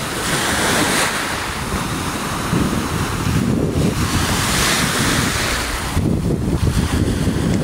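Lake waves washing against the shore, with gusty wind buffeting the microphone.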